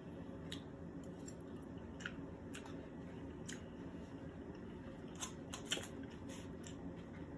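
Faint scattered clicks and ticks of someone eating, mouth and utensil sounds between bites, over a steady low hum, with a small cluster of sharper clicks about five to six seconds in.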